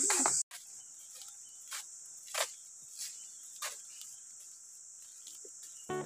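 Steady high-pitched buzzing of insects, loud for the first half-second and then, after a sudden cut, faint under a few footsteps on a paved path, about one step every two-thirds of a second. A plucked guitar starts at the very end.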